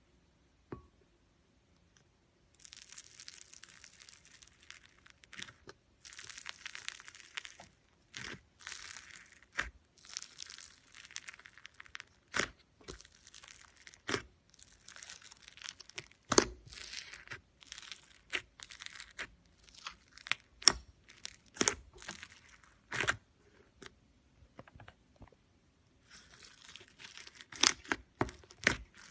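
Slime being stretched and squeezed by hand: crackly, tearing hiss broken by many sharp pops and clicks, pausing for a couple of seconds near the end.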